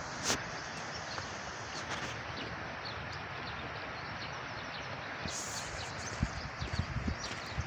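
Outdoor ambience: a steady rushing noise with scattered faint high chirps, a few sharp ticks, and several dull low knocks near the end.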